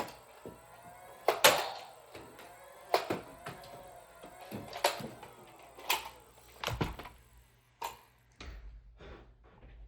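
Nerf blaster firing foam Elite darts: a string of sharp clacks a second or two apart, the loudest about a second and a half in.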